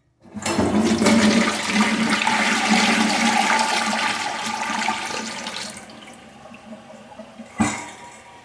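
Penguin high-efficiency toilet flushing: a loud rush of water that starts just after a faint click, then tapers after about five seconds into a quieter hiss. There is a single sharp knock near the end.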